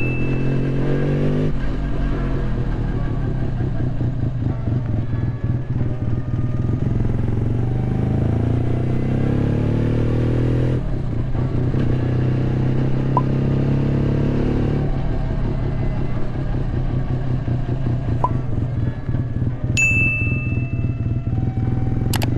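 Suzuki RE5's Wankel rotary engine running, its revs slowly rising and falling, with abrupt changes at about 11 and 15 seconds. A short high-pitched chirp comes near the end.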